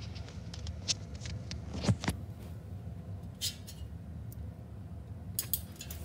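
Honeywell Sutton 52-inch ceiling fan running: a steady low hum with scattered light clicks and ticks.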